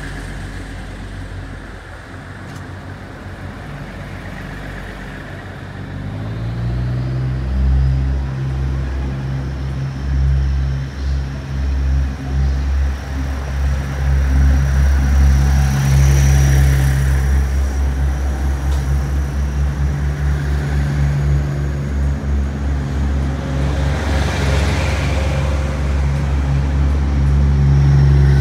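Taiwan Railways DR3000-series diesel multiple unit pulling away: its underfloor diesel engines throttle up with a rising pitch about six seconds in, then run loud and steady under power as the cars roll past, swelling as powered cars go by.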